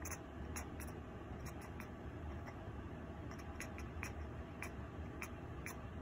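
Bengal cat chattering at a bird: short, quick ek-ek clicks and squeaks, about a dozen at irregular spacing.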